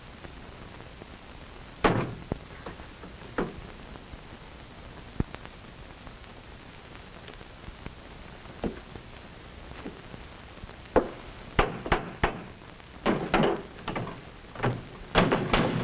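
Wooden kitchen cabinet doors opening and shutting and things being handled, knocking and clattering. A few knocks come seconds apart, then a quicker run of knocks and clatter near the end, all over the steady hiss of an old film soundtrack.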